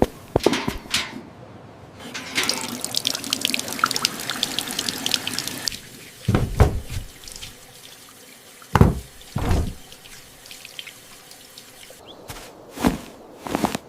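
Water running from a tap into a sink and splashing for a few seconds, followed by a few separate knocks.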